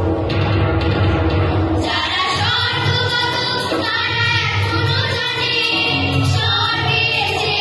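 Girls' children's choir singing in unison into stage microphones over an instrumental accompaniment; the voices come in about two seconds in, after a short instrumental passage.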